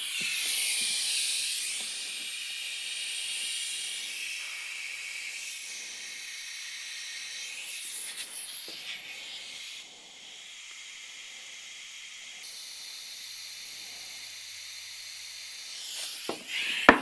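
Compressed air hissing through a shop air compressor's tire inflator into a lawn tractor tire's inner tube, with air also leaking at the worn, cracked inflator and hose fittings. The hiss is strongest at the start, drops about ten seconds in and picks up again, and sharp clicks come near the end.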